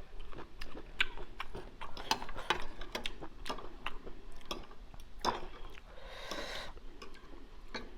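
Close-up chewing of papaya salad with noodles: a run of quick wet mouth clicks and smacks, with a short breathy hiss about six seconds in.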